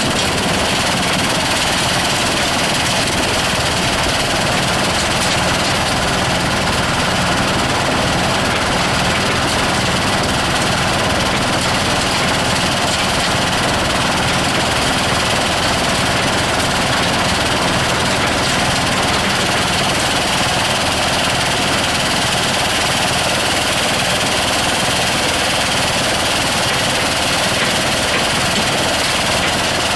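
Engine-driven soil screening machinery running steadily, a dense, unchanging mechanical noise.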